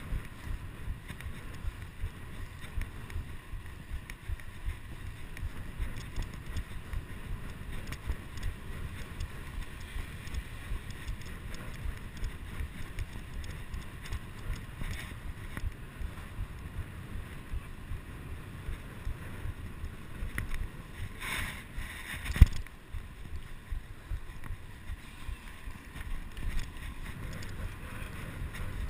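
Wind buffeting a chest-mounted GoPro HD2's microphone during a fast bicycle ride, over a steady low rumble of tyres on the road. About three-quarters of the way through, a brief hiss ends in a sharp knock, the loudest moment.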